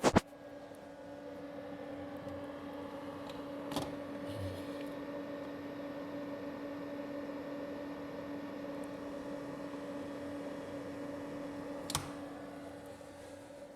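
Cooling fan of a Consul Facilite water cooler running with a steady, even hum, its central shaft freshly cleaned and oiled. Brief clicks at the start, about four seconds in and about twelve seconds in.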